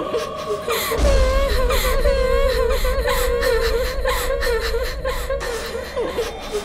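Eerie ghostly crying: a high, wavering sobbing wail that rises and falls in pitch. A deep low rumble sits underneath from about a second in until shortly before the end.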